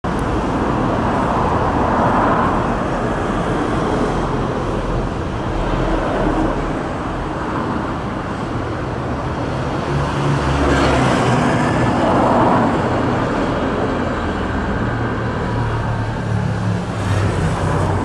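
Road traffic on a multi-lane city road: a steady rush of cars and trucks, swelling as vehicles pass close about two seconds in and again around twelve seconds.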